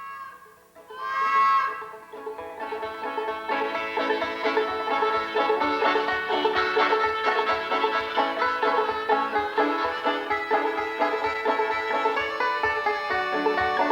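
Banjo-led, bluegrass-style music with a fiddle over a steady beat. It starts about two seconds in, after a loud wavering held note.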